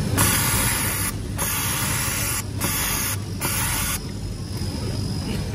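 Compressed air hissing in four bursts over about four seconds, cutting off sharply, over a steady low hum of factory machinery.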